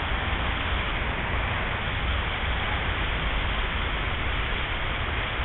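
Steady rushing of flowing river water, an even hiss with a rumbling low end.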